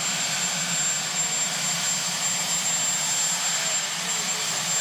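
Marine One helicopter's turbine engines running steadily: an even rushing noise with a constant high whine over it.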